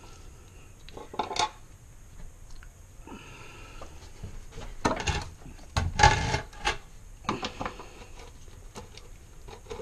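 Socket wrench working a bolt loose on the Freelander propshaft's main joint: irregular metallic clicks, knocks and scrapes, the loudest cluster about six seconds in.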